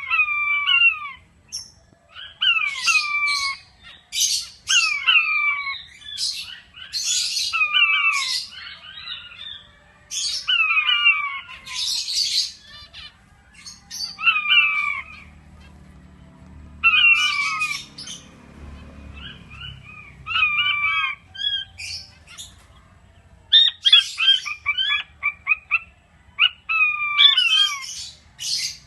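King quail (Asian blue quail) calling: a run of short, falling whistled notes repeated every second or two, several in quick succession near the end, mixed with harsher, scratchier chirps.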